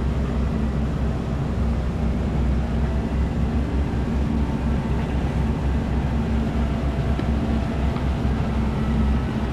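Heavy diesel engines of a dump truck and an excavator running steadily, a constant low rumble with no sudden knocks or changes.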